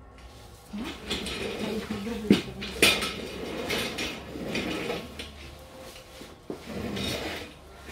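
Metal hairdressing tools clinking and clattering as they are handled at the tool trolley, with two sharp clinks about two and a half and three seconds in.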